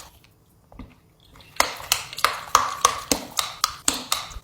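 Close-up crunchy chewing, likely of a giant Dubai chocolate kiss, about three to four crisp crunches a second that start a little over a second in.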